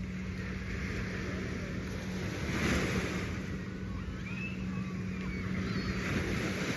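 Surf washing on a beach, with wind buffeting the microphone and a steady low hum underneath; the surf swells about a third of the way in.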